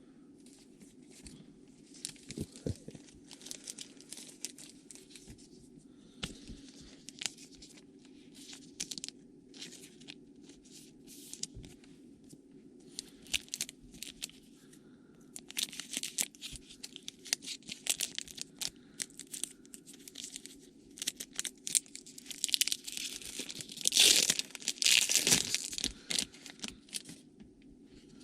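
Trading card pack wrappers crinkling and being torn open while the cards are handled: a run of short crackly rustles and clicks, with the loudest long tearing rustle near the end.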